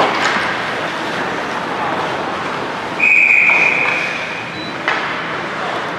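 Referee's whistle blown once for about a second, over the steady chatter of spectators in a large hall, followed by a short knock.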